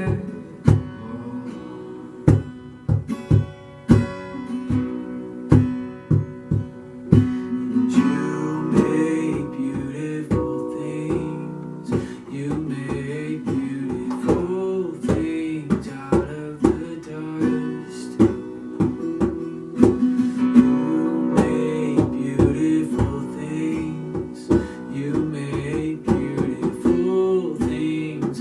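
Worship song: acoustic guitar strumming with regular sharp strokes, joined by a singing voice about eight seconds in.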